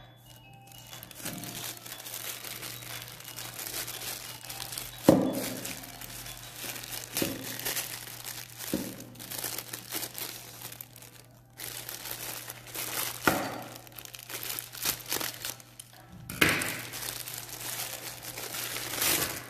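Plastic packaging crinkling and rustling as a mailer bag is handled and an item in a clear plastic bag is pulled out, with several sharper crackles, the loudest about five seconds in.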